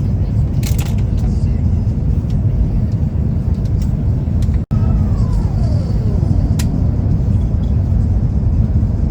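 Steady low engine and road rumble heard from inside a moving vehicle. It breaks off for an instant about halfway, and just after that a whine falls steadily in pitch. A few light clicks sound through it.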